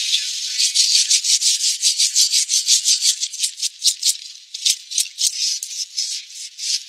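A cleaver blade scraping the singed, charred skin off a cow's hoof in quick, repeated strokes, about four or five a second.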